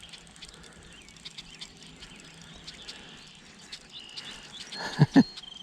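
Light clicking of a spinning reel being cranked, with birds and insects calling around a pond. Near the end come two short, loud sounds about a fifth of a second apart.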